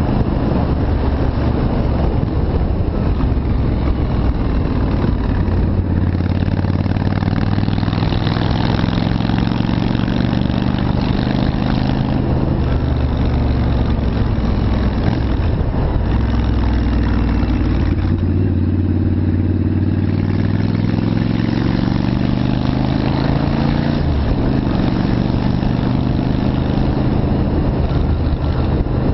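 Yamaha Virago V-twin motorcycle engine running under way, its pitch stepping up and down several times with throttle and gear changes.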